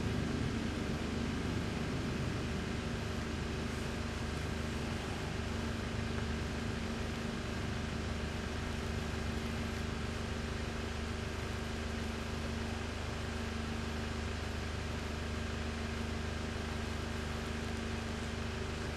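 Steady machine hum: a constant low drone with a few steady tones over a hiss, a little louder in the first second.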